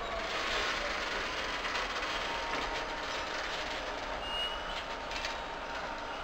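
MÁV M62 'Sergei' diesel locomotive, with its two-stroke V12 engine running, hauling freight wagons slowly along the track while shunting. Rolling wagons are heard along with the locomotive, with a short high squeal about four seconds in and a few sharp clicks near the end.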